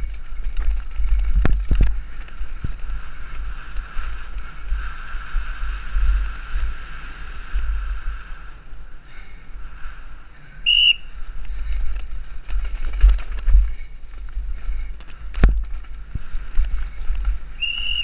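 Wind rumble on a helmet camera's microphone as a mountain bike speeds down a dirt trail, with frequent knocks and rattles from the bike over the rough ground. Two short, high whistles, about 11 seconds in and near the end, from spectators beside the trail.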